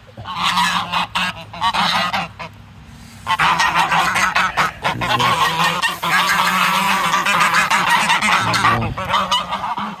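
A flock of white domestic geese honking loudly together, clamouring as feed is poured for them. The chorus eases off for about a second a little over two seconds in, then comes back louder and near-continuous until just before the end.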